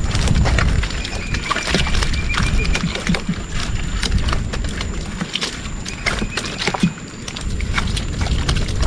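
Live fish, spotted scats and eeltail catfish, flapping and slapping in the wet wooden hull of a boat: a quick, irregular patter of wet knocks over a low wind rumble on the microphone.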